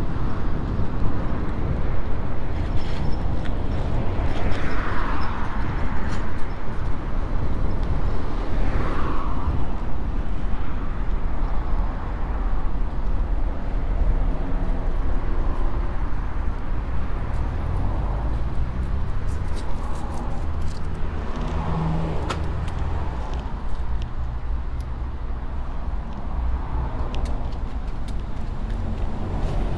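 Roadside traffic noise heard from a moving bicycle: a steady low rumble of wind and road noise, with vehicles passing several times. The clearest passes come about four and nine seconds in.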